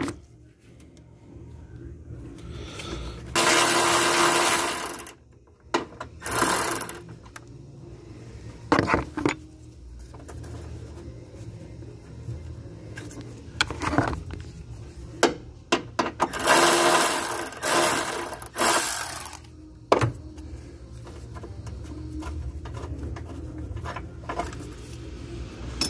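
Hand ratchet on an 8mm socket worked in several short runs of rapid clicking, loosening the wire-harness ground bolt, with scattered clinks of metal tools between the runs.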